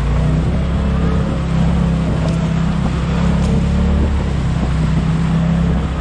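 Motor vehicle driving steadily: a continuous low engine drone that drifts a little in pitch, over road noise.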